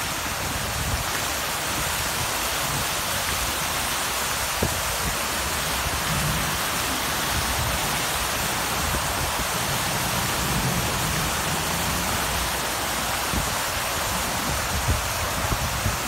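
Water from a tiered concrete fountain pouring over its ledges and splashing into the pool below, a steady rushing of water.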